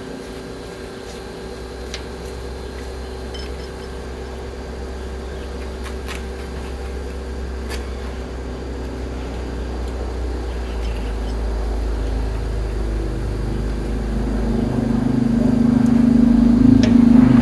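Steady mechanical hum with a low rumble that grows gradually louder and is loudest near the end, with a few light clicks.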